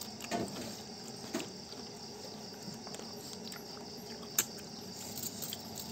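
Eating sounds: a few light clicks of a spoon against a ceramic bowl, the sharpest about four and a half seconds in, over a steady high insect chirring in the background.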